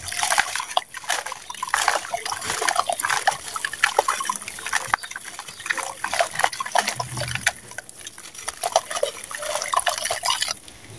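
Dry red sand-cement chunk crumbling and crunching in the hands, its grit and dust falling into a bowl of water: a dense run of small crackles over a gritty hiss.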